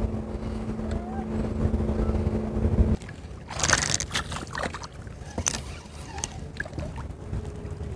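A small boat motor hums steadily and cuts off abruptly about three seconds in; half a second later a hooked crappie splashes at the water's surface.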